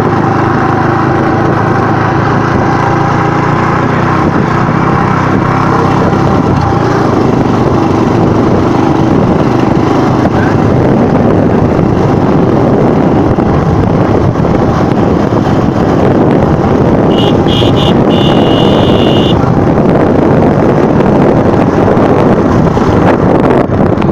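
Honda motorcycle's engine running steadily while riding, with road and wind noise. Around two-thirds of the way through, a high beep sounds three short times and then once longer.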